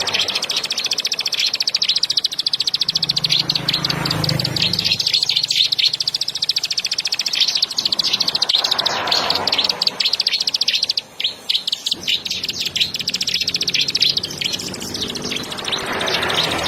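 Plain prinia (ciblek sawah) giving a fast, continuous buzzing trill, the rapid 'ngebren' call, with brief breaks about eleven seconds in.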